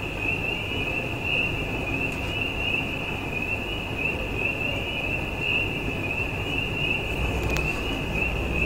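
Crickets chirring steadily in a high, evenly pulsing trill over a continuous low rumble of wind: an eerie night ambience.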